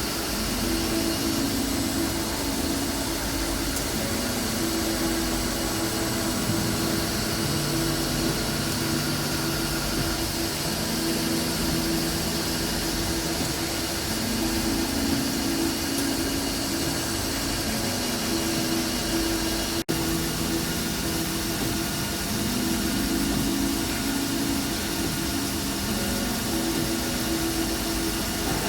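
CNC machine tool running steadily: a continuous motor hum over a hiss, its pitch stepping up and down every few seconds.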